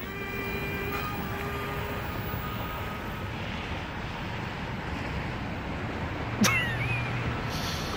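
Micro RC C-17 model plane's electric motors whining at full throttle, a steady-pitched whine that fades out within the first two seconds as it flies off, over a steady hiss of road traffic. A brief sharp sound comes about six and a half seconds in.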